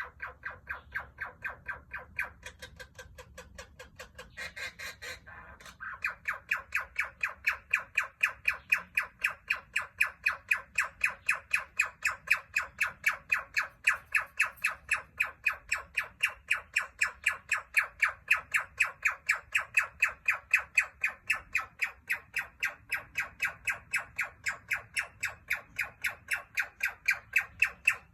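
Male princess parrot calling over and over in a steady run of short, harsh notes, about three a second, with one rougher squawk about five seconds in. The notes grow louder after about six seconds and keep an even rhythm.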